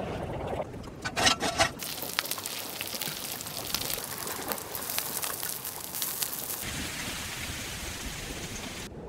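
Bacon sizzling and spitting in hot fat on a griddle plate, a dense crackling hiss full of fine pops. Near the start a coffee percolator gurgles briefly.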